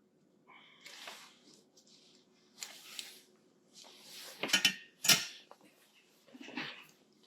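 A small tool and plastic parts of a remote-start fob being handled and worked apart by hand: a string of short scrapes and clicks, the loudest two about halfway through.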